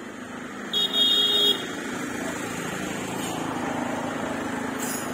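Road vehicle passing, its noise swelling and then easing off. A brief loud high-pitched tone sounds about a second in.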